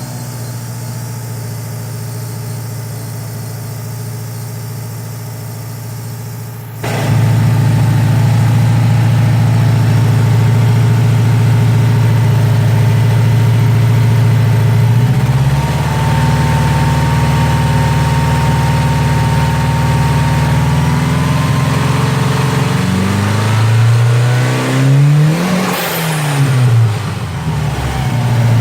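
Car engine idling steadily, becoming suddenly louder about seven seconds in, then revved up and let back down near the end.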